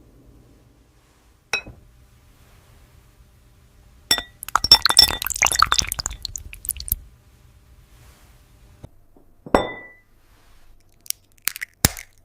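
AI-generated glass-food ASMR sounds. A single ringing glass clink, then about three seconds of dense glassy crackling and crunching. Another clink with a ringing tone follows, and sharp ticks come near the end.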